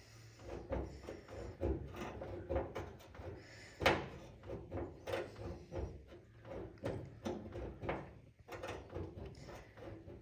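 Irregular small clicks and knocks, several a second, with one sharper knock about four seconds in, from a paintless dent repair tool working against the inside of the car's sheet-metal body panel.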